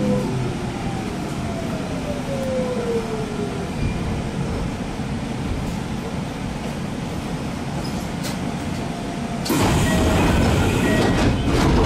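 Steady equipment hum inside a stopped Kintetsu electric train, with a few tones gliding downward over the first few seconds. About nine and a half seconds in, a louder rush of noise with scattered clicks sets in.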